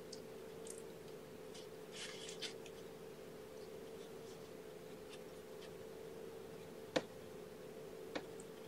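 Faint scratching and rustling as young kittens are handled on a fabric blanket, over a steady faint hum. Two sharp clicks come near the end, the first the loudest sound.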